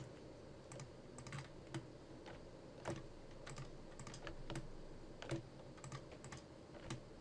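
Irregular clicks of a computer mouse and keyboard, about two a second, over a faint steady background hiss.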